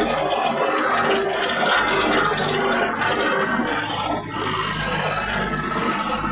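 Scraping and rubbing of a phone microphone against clothing as the phone is handled, over a steady low hum.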